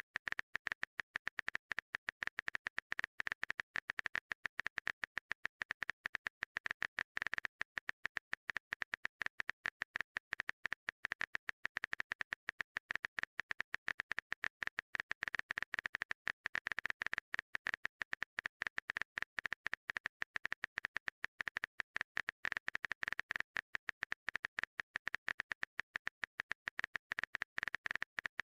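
Phone-keyboard typing sound effect of a text-message app: a fast, steady stream of short clicks with no pauses.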